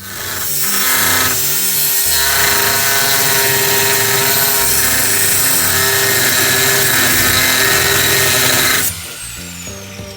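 Angle grinder grinding steel at full speed for about nine seconds, then switched off, its disc whine falling as it spins down. Background music plays underneath.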